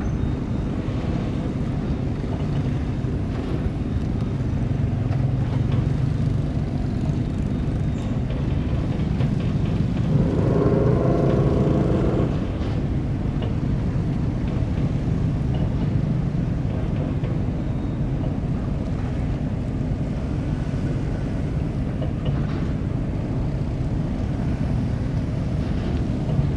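Steady low engine rumble of a boat, with wind on the microphone. About ten seconds in, a pitched sound with several stacked tones sounds for about two seconds and then stops.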